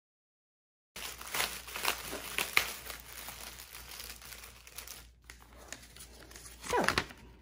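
Clear plastic packaging holding small bagged diamond-painting drills crinkling and rustling as it is handled and set down, starting about a second in and loudest over the next few seconds.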